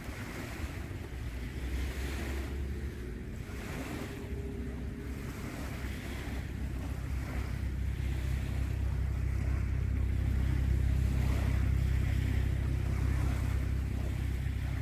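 Water washing in repeated surges, over a steady low rumble that grows louder about halfway through.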